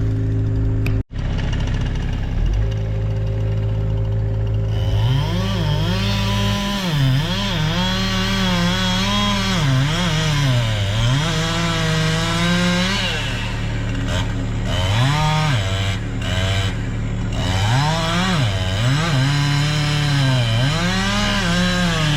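Chainsaw making a felling cut in a pine trunk, its engine pitch sagging under load and climbing again over and over. Before that, about a second in, a steady engine tone breaks off briefly.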